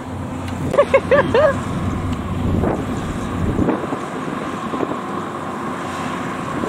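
Yanmar YH850 combine harvester running steadily while harvesting rice. About a second in, a short wavering voice-like call rises and falls a few times over the machine noise.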